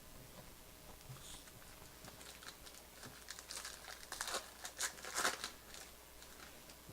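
Wrapper of a pack of baseball cards crinkling and tearing as it is opened: a run of faint crackles and rustles, busiest a little past the middle.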